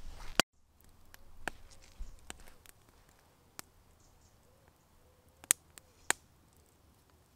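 Wood campfire of birch logs crackling quietly, with a few scattered sharp pops, the loudest two about five and a half and six seconds in. A single knock at the very start.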